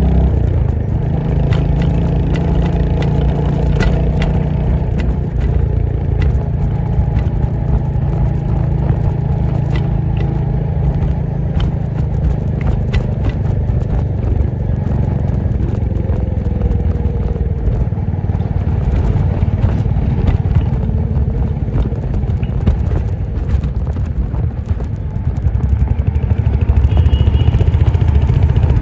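Royal Enfield Hunter 350's single-cylinder engine and exhaust running steadily while riding, with scattered clattering knocks. The engine gets louder near the end as the bike picks up.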